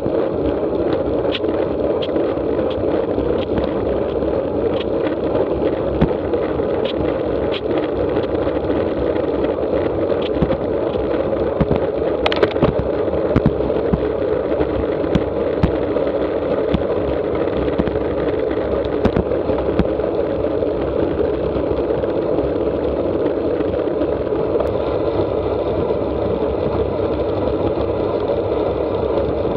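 Steady wind and tyre noise picked up by a camera mounted on a road bike riding at about 22 to 26 mph, with scattered small clicks and rattles from road vibration and one louder knock about twelve seconds in.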